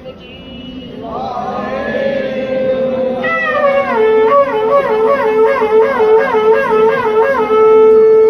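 A wind instrument playing a tune over a steady low note, with quick warbling ornaments in the melody, and a long held note near the end.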